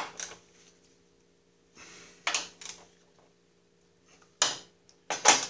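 Steel socket wrench and extension clinking against nuts, bolts and the metal axle housing as bolts are hand-tightened: a few sharp, separate metallic clinks, around two seconds in, about four and a half seconds in and near the end.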